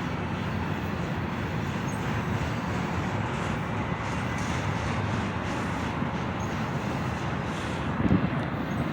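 Union Pacific freight train cars rolling past, a steady rumble of wheels on the rails.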